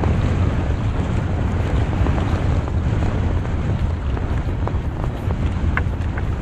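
Steady wind rumble buffeting the microphone at sea, with faint ticks and rustles from a fishing net being hauled in by hand.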